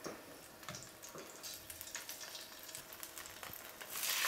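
Garlic cloves frying gently in olive oil in a pan, with faint scattered crackles. Near the end, a chicken leg is lowered in with tongs and a louder sizzle starts.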